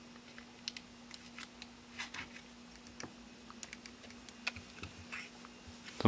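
Faint, scattered small clicks and taps from a phone and a plastic pry tool being handled during disassembly, over a faint steady hum.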